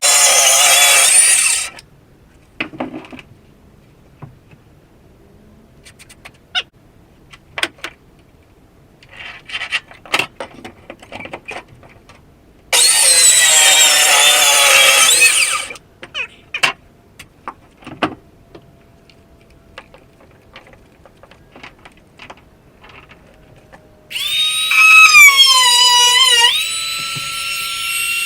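A power tool runs in two short bursts, about a second and a half and then three seconds, with scattered knocks and taps between. Near the end a loud whining tool starts up and runs on.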